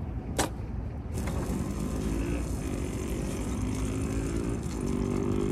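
An engine runs nearby, its drone climbing slowly in pitch from about two seconds in. A single sharp click comes shortly before.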